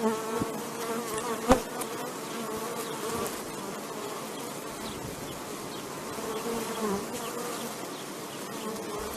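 A flying insect buzzing steadily, its pitch wavering a little, with one sharp click about one and a half seconds in.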